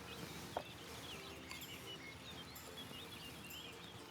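Faint birds chirping in the background over a quiet outdoor hush, with one light tap about half a second in.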